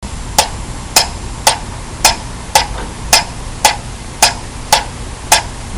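Sharp clicks repeating at an even pace, a little under two a second, ten in all, over a steady hiss.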